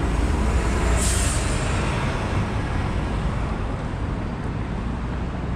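Steady road traffic rumble from passing vehicles, with a short sharp hiss about a second in.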